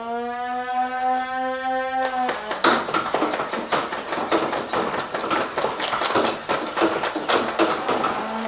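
Nerf N-Strike Elite HyperFire's battery-powered flywheel motors spin up with a rising whine that levels off for about two seconds. The blaster then fires full auto, a rapid rattle of darts at about five a second, emptying its 25-dart drum.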